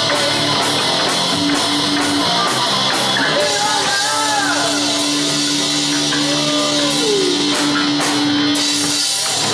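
Rock band playing the last bars of a song on guitars and drums: a steady drum beat, then a long held final chord with sliding, bending guitar notes over it, stopping just before the end.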